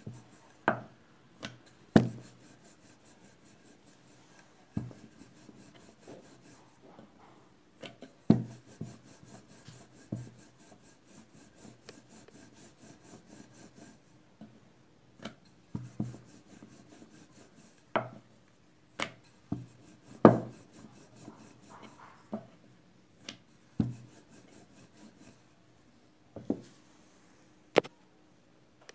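Dough being rolled out with a ridged wooden rolling pin on a round wooden board: soft rubbing as the pin rolls, broken by irregular sharp knocks of the pin on the board.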